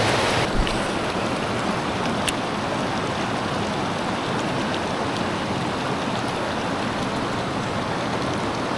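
Steady rush of river water spilling over a low weir and running over rocks.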